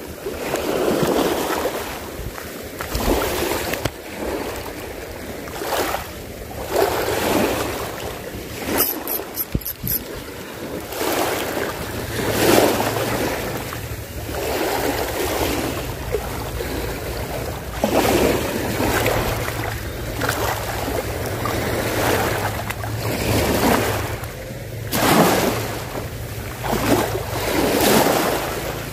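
Small waves washing against the shore in repeated surges every two to three seconds, with wind buffeting the microphone. From about twelve seconds in, a low steady hum runs underneath.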